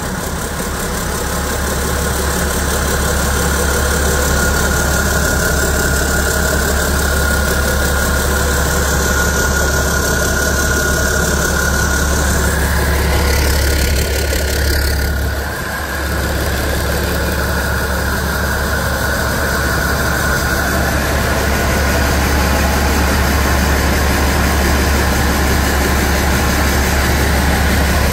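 International DT466E 7.6-litre turbocharged inline-six diesel idling steadily on an engine test stand during a test run, with a steady high whine over the engine.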